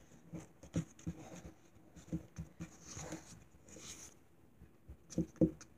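A plastic sand tool knocking and tapping irregularly on a hard tabletop, about a dozen light taps, with soft scraping in the middle.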